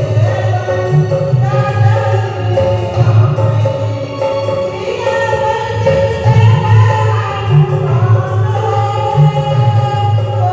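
Hindi devotional bhajan to Hanuman being sung: voices holding long, gliding melodic lines over a pulsing low accompaniment.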